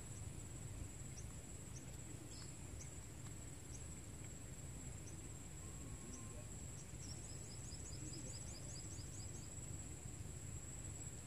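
Insects droning steadily at a high pitch over a low steady rumble, with scattered short high chirps and a quick run of about a dozen chirps about seven seconds in.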